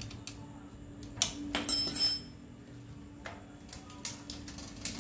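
Metal-on-metal clicks and clinks from hand work on a bicycle's rear derailleur, with one bright, ringing metallic clink about two seconds in as the loudest sound.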